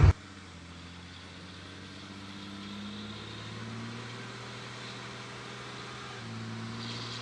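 The 5.9 L Cummins inline-six turbo diesel of a 2003 Dodge Ram 2500 idling, heard faintly as a steady low hum.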